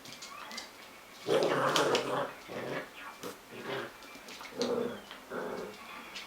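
A dog vocalising in a string of short sounds, the loudest about a second and a half in.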